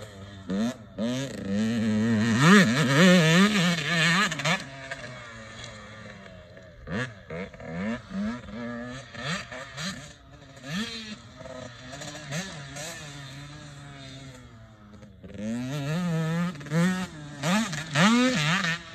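Motocross dirt bike engine revving up and down again and again as the rider works the throttle over the track. Loud over the first few seconds and again near the end, fainter in the middle.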